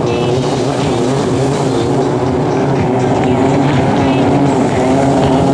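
Engines of stand-up racing jet skis running hard, their pitch wavering up and down as the riders throttle through the turns.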